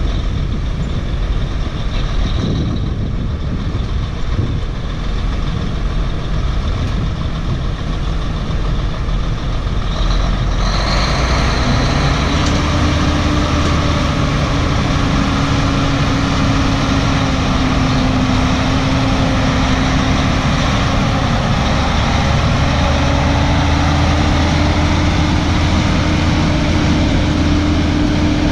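Diesel engine of an old Mack truck pulling a lowboy trailer loaded with an excavator. It grows louder about ten seconds in as the truck comes closer, then holds a steady engine note with a low hum.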